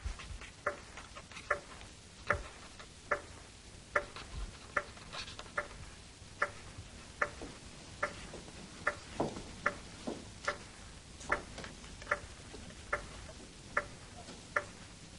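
A clock ticking steadily and faintly, a little more than one main tick a second, with softer ticks between them.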